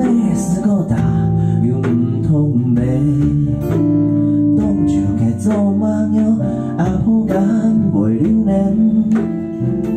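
Live band music: a strummed acoustic guitar with electric bass and electric guitar, and a man singing over it.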